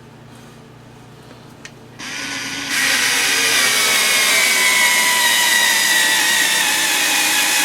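Skil 4-volt cordless screwdriver's motor whining as it drives a large exterior screw into a wooden landscape timber, starting about two seconds in. The pitch sinks slowly as the motor struggles under the load, but the screw goes through.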